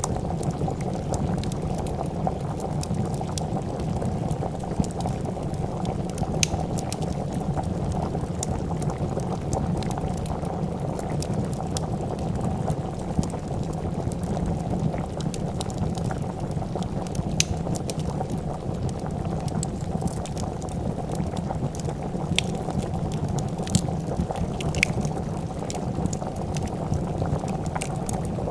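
A pot of soup bubbling at a steady boil, with scattered sharp crackles and pops from a wood fire.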